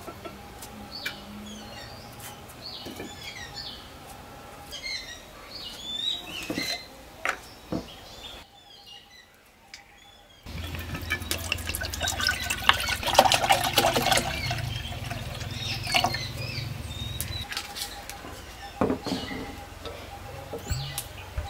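Small birds chirping, then about halfway through a louder stretch of liquid sound with dense crackling that lasts several seconds.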